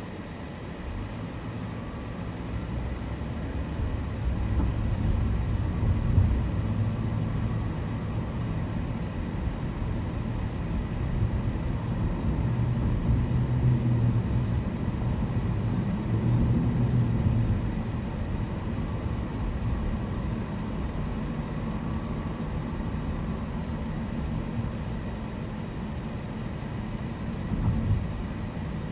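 Car driving: a steady low rumble of engine and road noise that builds over the first few seconds and eases somewhat after about eighteen seconds.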